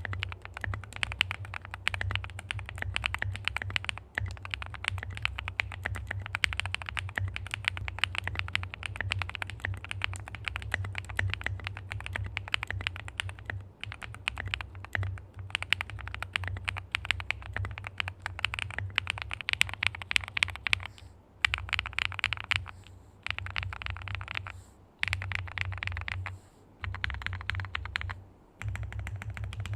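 Fast typing on a QK75 mechanical keyboard fitted with Gateron Deepping 4.0 mm switches and GSA Ping Master ABS keycaps, the keystrokes following each other closely in a steady stream. In the last third the typing breaks into shorter runs with brief pauses between them.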